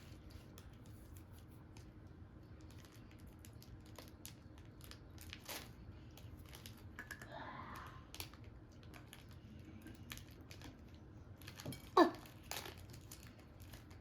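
Scattered small clicks, taps and light crinkling of hands picking tiny candy decorations from a plastic packet and pressing them onto a cookie.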